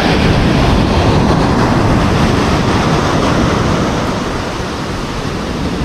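Ocean surf breaking and washing up a sandy beach: a steady rush of water that swells at the start and eases a little near the end.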